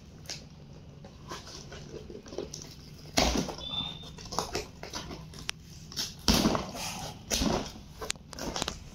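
Cardboard delivery box being opened by hand: tape peeled off and flaps pulled apart, with irregular rustling and scraping and a few louder rips and knocks of cardboard, about three seconds in and again around six to eight seconds in.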